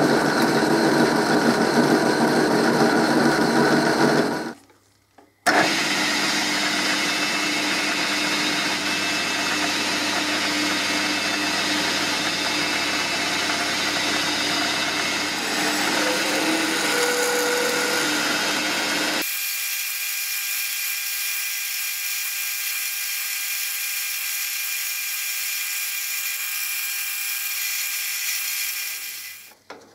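Metal lathe running steadily as a large disc blank spinning in the chuck is faced with a turning tool, then center-drilled and drilled with a twist drill from the tailstock. The sound breaks off for about a second about five seconds in, and a little under two-thirds of the way through it steps down and loses its low end.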